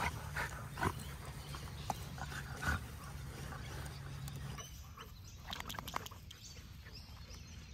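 Dogs play-wrestling, with short growls and grunts coming one after another over the first three seconds, then a few more about six seconds in.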